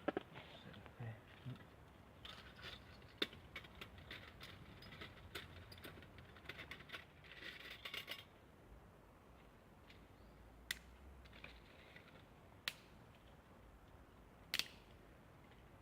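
Bushbox XL folding camp stove being set up: a busy run of light clicks and clinks for about eight seconds, then a few single sharp clicks.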